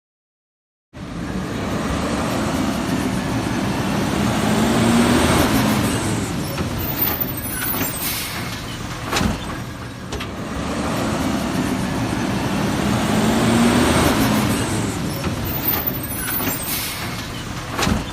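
Garbage truck sound effect: a truck engine running, swelling and easing off, with a few sharp knocks. It starts after about a second of silence, and the same stretch repeats about halfway through.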